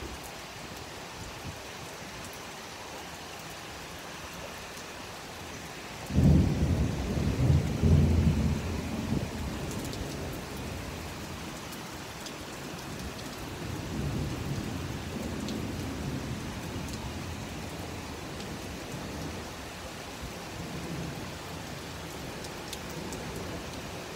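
Heavy rain falling steadily. About six seconds in a loud clap of thunder breaks in, rumbles low for a few seconds and fades, and a softer roll of thunder follows later.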